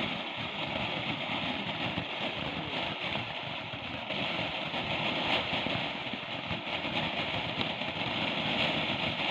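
Ground fountain firework burning with a steady hiss of spraying sparks.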